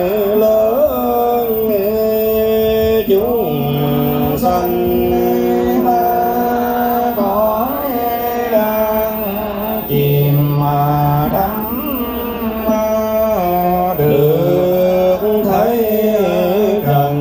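Buddhist chanting sung as a slow melody, long held notes stepping up and down in pitch without a break.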